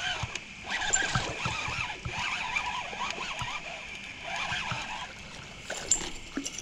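A hooked largemouth bass being brought in on a spinnerbait, with water splashing, over a steady high chirring of insects.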